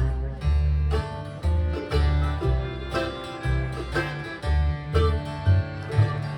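Bluegrass-style string band playing an instrumental break: quick plucked string notes over a walking bass line, with no singing.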